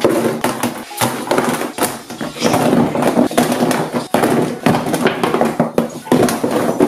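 Smartphones and cardboard phone boxes clattering as they are dropped onto a heap on a tabletop, with many quick, irregular knocks.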